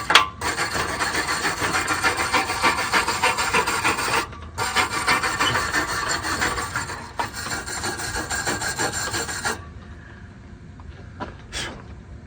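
Rasping, scraping strokes worked over metal, in two spells of several seconds with a short break about four seconds in, then a quieter stretch with a couple of light knocks.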